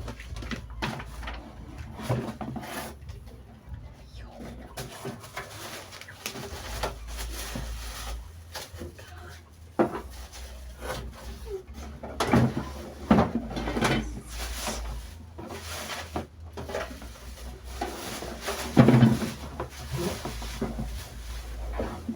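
Unpacking a parcel by hand: packaging rustling with scattered knocks and clatters as the item is moved and opened.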